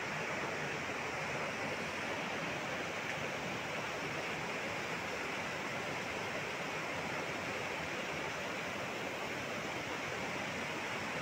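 Muddy floodwater of a wadi in spate rushing by, a steady unbroken roar of moving water.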